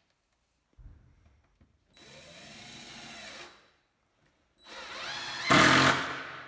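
Cordless DeWalt impact driver driving screws through plywood into a plywood upright: two runs, one lasting about a second and a half from about two seconds in, then a louder one near the end, the motor pitch rising as it spins up each time.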